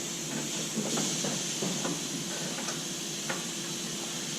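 Steady hiss of compressed air, with a faint low hum and a few light taps or knocks scattered through it.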